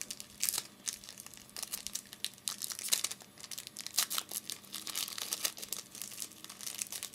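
Trading-card pack wrapper being torn open and crinkled by hand: a run of irregular crackles and rustles.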